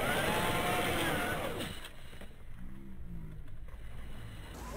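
Electric motor and gears of a radio-controlled scale crawler whining under throttle as it climbs a sandy rut. The pitch rises and then falls over the first second and a half, with a shorter, lower whine about three seconds in.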